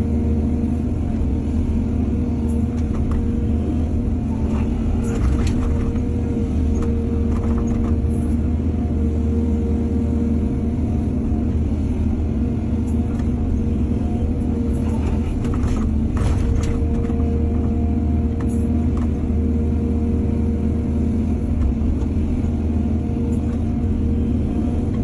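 Heavy diesel engine of an excavator running steadily, with a few short clanks and clatters.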